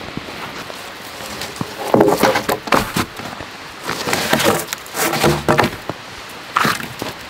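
Snow-covered logs and spruce branches being picked up and shifted, in a few separate bursts of wood knocking, scraping and branches rustling from about two seconds in, over a steady background hiss.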